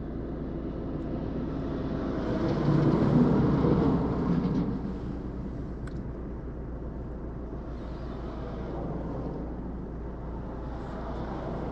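Steady road and engine noise of a moving car, with an oncoming oversize wide-load truck passing about three seconds in, the sound swelling and then fading; a fainter swell follows later.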